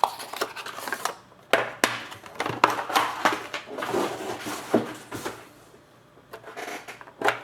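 Hands handling a trading-card box and its packaging: irregular rustles, taps and clicks, busiest in the first few seconds, then dying down before a couple of sharp clicks near the end.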